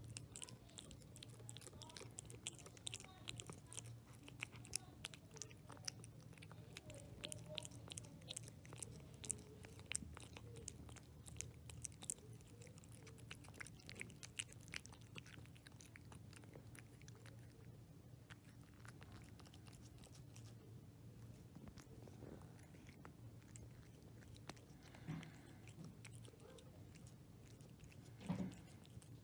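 A cat eating wet salmon pâté from a stainless steel bowl: quiet, quick wet chewing and smacking clicks, dense at first and thinning out in the second half. A brief louder sound comes near the end.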